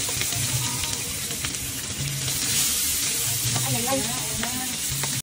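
Chopped vegetables and meat sizzling in oil in a frying pan while a wooden spatula stirs them, with short clicks of the spatula against the pan now and then.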